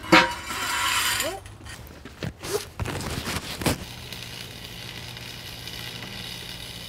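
A steel box is slid onto a steel beam with a clank and about a second of metal-on-metal scraping, followed by a few knocks. From about four seconds in, a stick-welding arc crackles steadily over a low hum from the Lincoln 225 AC welder.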